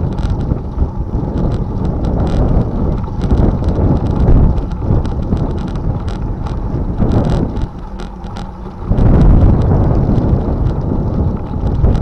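Wind buffeting the microphone of a handlebar-mounted camera on a moving bicycle, with the tyres crunching over a gravel path and small clicks and rattles throughout. The wind noise dips briefly, then grows louder about nine seconds in.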